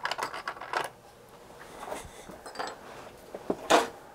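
Rummaging through a basket of small parts: a dense run of metallic clinks and clatter in the first second, scattered clicks after, and one sharp knock near the end.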